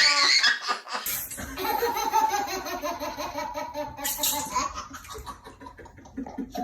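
Laughter in a long run of quick pulses that slowly falls in pitch and fades.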